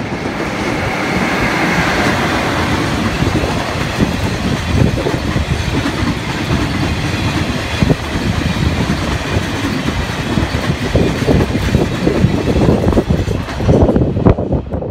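EF66 electric locomotive running past close by, followed by a long string of covered hopper wagons rumbling by, their wheels clicking over the rail joints in quick repeated knocks that grow stronger in the second half.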